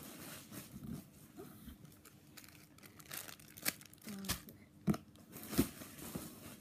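Crinkling and rustling of plastic packaging as a squishy toy is handled close to the microphone, with a few sharper crackles and knocks between about three and a half and six seconds in.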